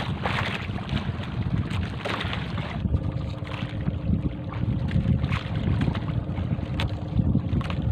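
Wind buffeting the microphone out on open water, a dense low rumble with scattered small knocks. A faint steady hum comes in about three seconds in.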